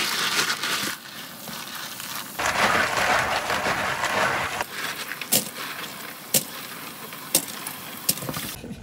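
Raw cockles being scrubbed by hand in a plastic basin under running tap water: shells grinding and clattering together with the splash of the water, loudest for a couple of seconds midway. Sharp single clicks of shell on shell, about one a second, follow. The washing flushes mud out of the cockles.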